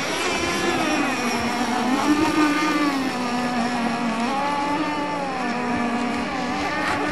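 Radio-controlled racing boats running at speed on the water, more than one motor whining at once, the pitch rising and falling as they accelerate and ease off through the course.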